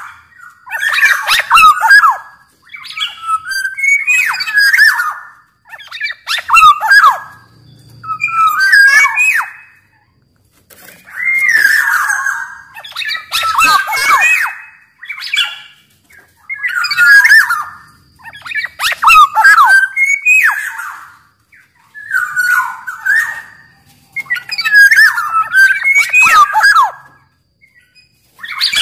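Black-naped oriole singing a run of loud, fluting, whistled phrases of a second or two each, with short pauses between them and harsh scratchy notes mixed in.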